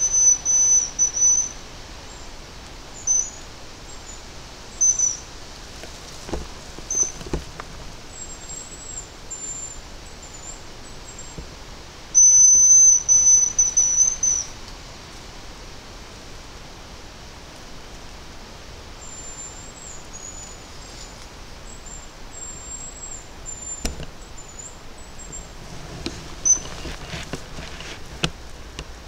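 High, thin whistles of a hazel grouse decoy call: a few short whistles in the first seconds, then one long whistle about twelve seconds in, with fainter, wavering whistles in between. Near the end, a few sharp snaps and rustling in the undergrowth.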